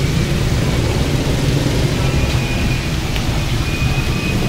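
Steady roadside traffic noise: a continuous low rumble with a hiss over it.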